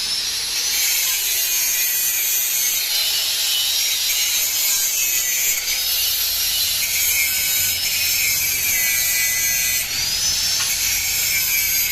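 Electric angle grinder running against steel, a steady high-pitched grinding whine that wavers up and down in pitch as the pressure on the disc changes.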